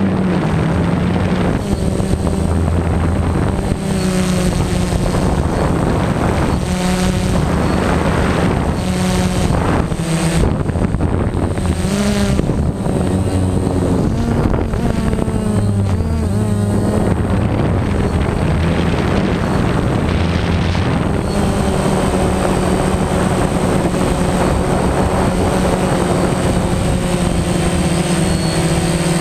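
Quadcopter drone's electric motors and propellers buzzing steadily in flight, heard close up from a camera on the drone itself; the pitch wavers up and down as the motors change speed, most clearly about halfway through.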